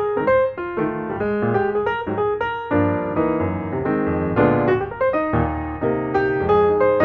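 Background piano music: a continuous light tune of quickly struck notes.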